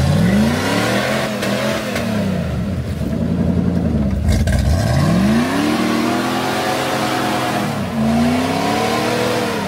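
Engine of a lifted 4x4 SUV revved hard again and again while the vehicle is stuck in deep mud, its pitch climbing and falling several times, with one long high stretch in the middle, as the mud tyres spin.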